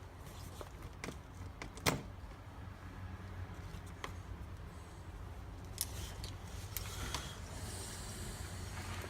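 Scattered small clicks and taps of plastic and metal parts and tools being handled during reassembly of a 1/10-scale RC crawler's transmission, the sharpest about two seconds in, over a low steady hum. Near the end there is a short scratchy rubbing.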